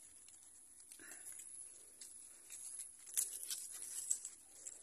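Faint rustling and crackling of corn leaves and husk being handled, with a string of small crackles through the second half.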